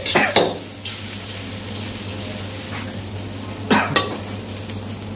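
Oil sizzling in a steel wok while a metal ladle stirs and scrapes through small browned bits. The ladle knocks against the wok a few times in the first half-second and twice again near four seconds in.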